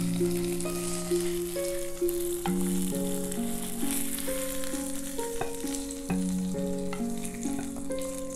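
Background music, a slow melody of long held notes that change every half second to a second, over a steady high sizzling hiss from a hot frying pan.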